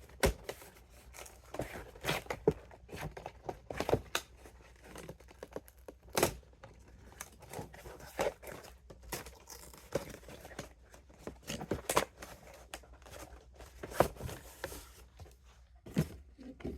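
Packaging of a Pokémon Greninja EX box being opened by hand: irregular tearing, crinkling and sharp clicks and taps as it is pulled apart and handled.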